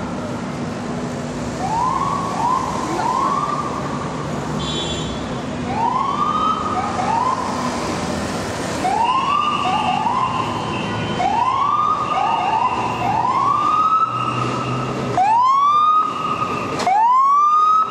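Emergency vehicle siren on a city street, sounding a run of short rising whoops, often in close pairs, over traffic noise. It grows louder toward the end.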